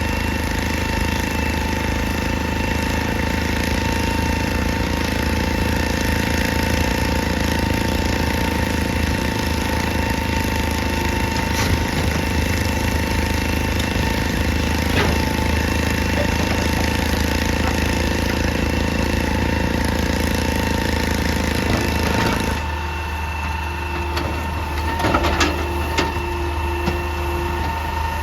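Excavator's diesel engine running steadily under load, with a constant high hydraulic whine. About 22 seconds in the sound changes abruptly, and a few sharp knocks or cracks follow near the end.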